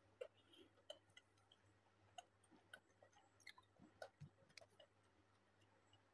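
Near silence with faint, irregular small clicks: hard-coated chocolate candies knocking against each other and the plastic jar as fingers pick through them.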